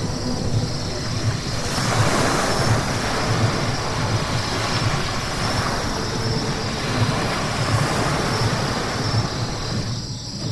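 Car driving on a wet road: steady low rumble of road and tyre noise with a wet hiss that swells a couple of times.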